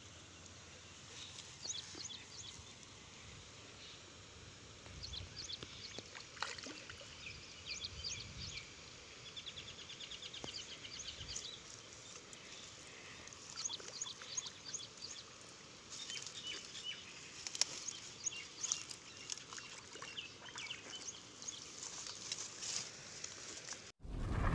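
Birds chirping and calling over faint outdoor background noise, many short high calls with a rapid trill about ten seconds in. Near the end the sound cuts out abruptly and a loud rising rush of noise begins.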